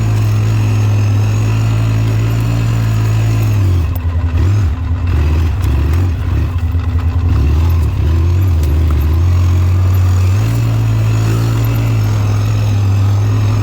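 ATV engine running with a steady low note, which goes uneven and shifts up and down for several seconds in the middle before settling back to a steady run.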